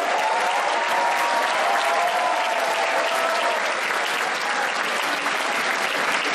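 Live wrestling crowd clapping steadily, with many voices shouting over the applause in the first half.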